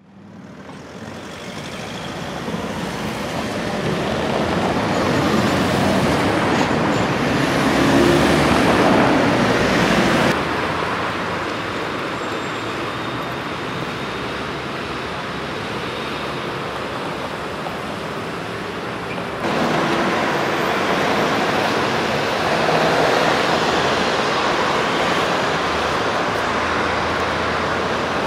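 Steady city street traffic noise: cars and buses running past on a busy square, fading in at the start, swelling for a few seconds, and changing level abruptly twice, about ten and twenty seconds in.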